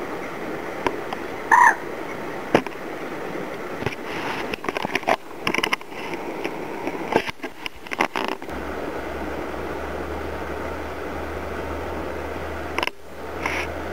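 Streamside ambience with a short animal call about one and a half seconds in, a scatter of clicks a few seconds later, and a steady low hum that comes in past the middle.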